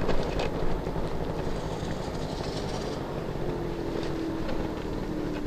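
Yamaha Aprio 50cc two-stroke scooter engine running steadily as the scooter rolls along at low speed. A faint whine eases slightly lower in pitch in the second half.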